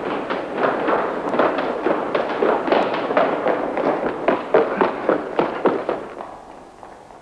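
Running footsteps of several people slapping fast and irregularly on a hard floor, fading away about six seconds in.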